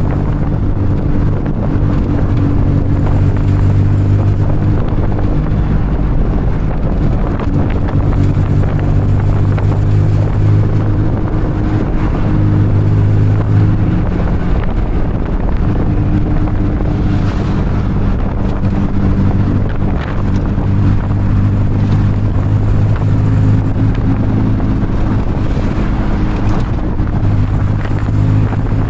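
A tuk-tuk's small engine running while under way, its pitch shifting now and then as it speeds up and slows, with wind buffeting the microphone.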